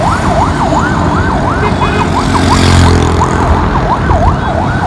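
Emergency-vehicle siren in a fast yelp, wailing up and down about three times a second, over low street-traffic rumble; a vehicle's engine swells louder about halfway through.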